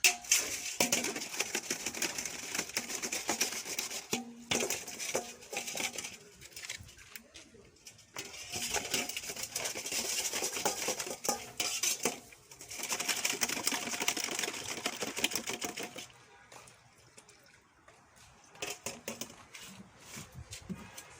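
Metal objects clinking and rattling in several bursts of a few seconds each, with only scattered clicks in the last few seconds.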